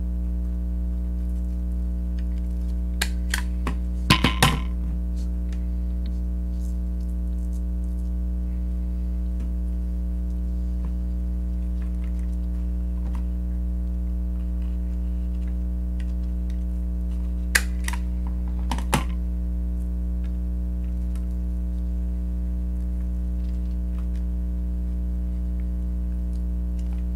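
A handheld stapler snapping shut as it drives staples through ribbon and foam: a quick run of clicks about four seconds in, then two single clicks around eighteen and nineteen seconds in, over a steady low hum.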